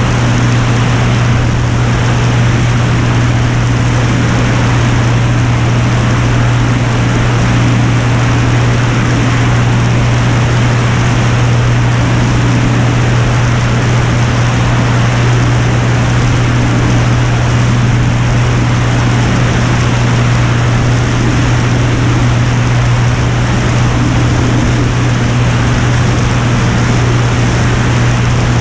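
Piper Turbo Saratoga's turbocharged six-cylinder engine and propeller running steadily in cruise flight. It is a loud, unbroken deep hum under a wide rush of air noise.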